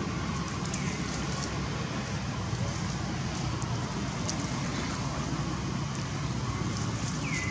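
Steady low rumbling background noise with faint scattered ticks, and a short high falling chirp near the end.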